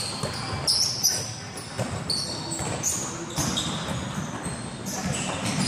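Basketball game play on an indoor court: the ball bouncing several times, sneakers squeaking in short high chirps on the floor, and voices in the background.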